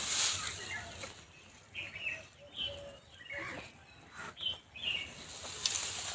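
Dry straw rustling and crackling as it is pushed by hand into the mouth of a clay stove to get the fire going, with small birds chirping repeatedly in the background.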